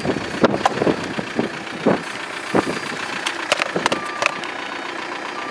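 Vehicle engine idling, with scattered clicks and knocks of gear being handled. Near the end, a short beep repeats about every second and a half.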